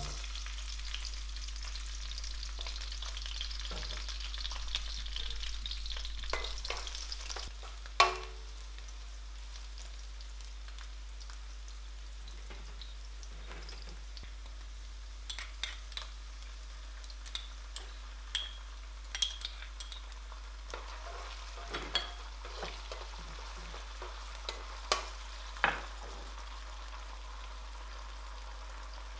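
Garlic cloves frying in olive oil in a nonstick wok: a steady sizzling hiss for the first several seconds that dies down, then scattered pops and crackles from the hot oil. One sharp knock about eight seconds in.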